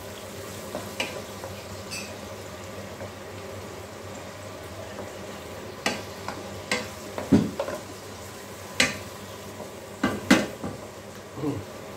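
Peeled tomatoes and onions sizzling gently in an aluminium pan over medium heat, with a wooden spoon stirring and pressing them. The spoon knocks and scrapes against the pan a few times, mostly in the second half.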